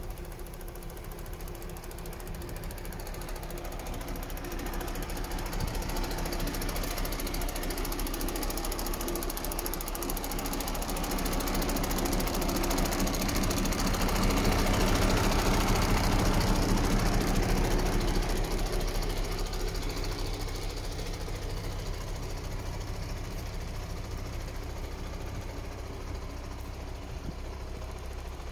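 MAN TGA 26.400 truck's straight-six diesel engine idling steadily with a mechanical clatter. It grows loudest about halfway through, heard up close at the engine bay behind the cab, then eases off.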